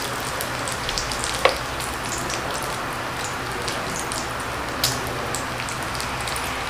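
Pork belly slices (samgyeopsal) sizzling steadily on the hot plate of an electric grill, with a few sharp pops. The meat is frying in rendered fat that the plate does not drain away.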